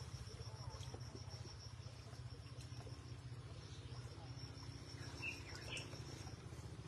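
Insects trilling on one steady high note over a low steady rush of running stream water, with two short chirps a little over five seconds in.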